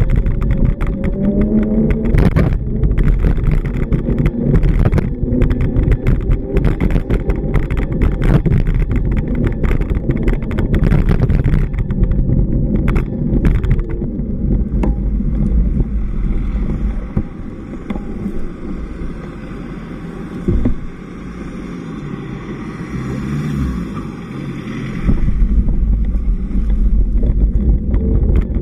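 Road traffic on a city street: cars passing close by with a loud low rumble and crackle. It drops off for several seconds about two-thirds of the way through, while a passing vehicle's hiss swells and fades, then the loud rumble returns.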